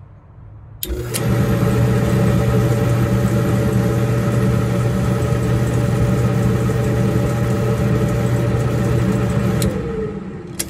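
Samsung gas dryer's failing drive motor: a click about a second in, then the motor runs with a loud, steady hum; near the end a click comes and the motor stops, winding down with a falling pitch. The click and cut-out are the sign of the bad motor, which shuts the dryer off on its own shortly after it starts.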